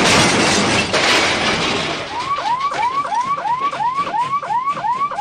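A hissing noise for the first two seconds, then an electronic alarm sound of short rising chirps repeating rapidly, about three to four a second.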